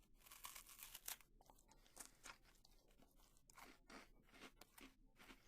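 A person chewing a hazelnut chocolate cream wafer: faint, irregular crunches.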